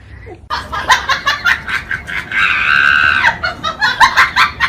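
High-pitched laughing and shrieking in quick bursts, with one held shriek around the middle.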